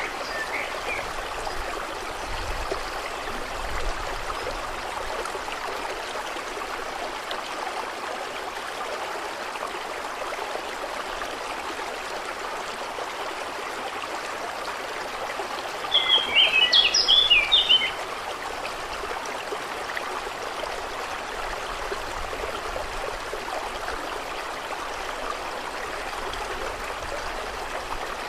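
Steady, even sound of running water. A little past halfway a bird sings one short burst of quick high chirps lasting about two seconds.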